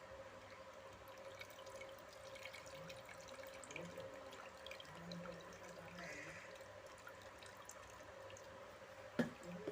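Faint dripping and small scattered ticks over a steady hum, with a sharp knock near the end.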